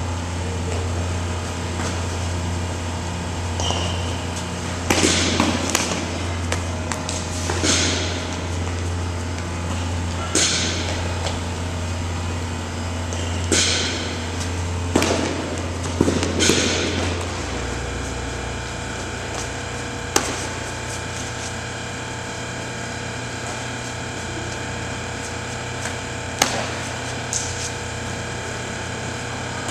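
Steady machine hum with a series of sharp knocks and thuds, most of them close together in the first half and two more spaced out later; the low part of the hum drops away a little past halfway.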